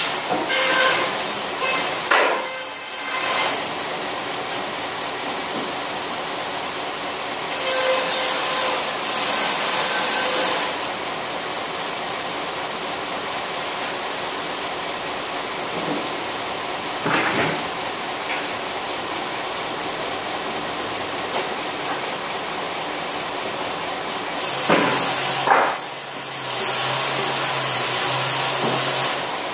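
Table-mounted circular saw running with a steady hum, its blade cutting wood with a loud hissing rasp about 8 to 10 seconds in and again from about 25 seconds to near the end. A few knocks of wood on wood in between.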